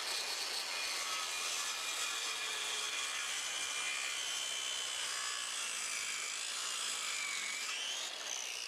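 Handheld circular saw running through a new pressure-treated board, squaring its end, at a steady level through the cut and easing off near the end as the cut finishes.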